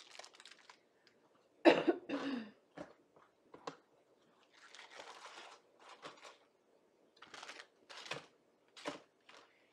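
Quiet, intermittent rustling and crinkling of plastic-wrapped packaging as small items are handled and set aside, with a short cough about two seconds in.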